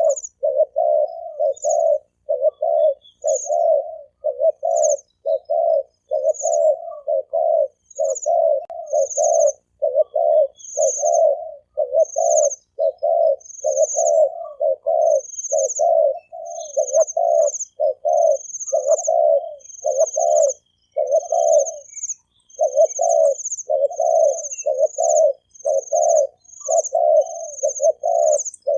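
Spotted dove cooing over and over in the 'thổ kim' call style, its low coo phrases following one another with only short gaps. A short, very high chirp repeats steadily alongside the cooing.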